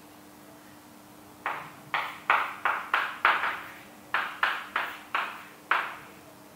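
Chalk writing on a blackboard: about a dozen quick, sharp taps starting about a second and a half in, with a short pause midway, over a faint steady hum.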